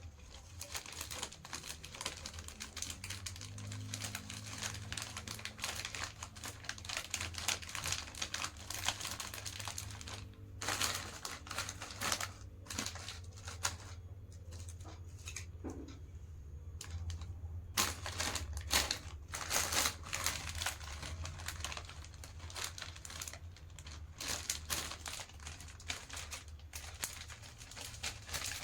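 Plastic snack packets being handled and packed: a busy run of irregular crinkles and small clicks, over a steady low hum.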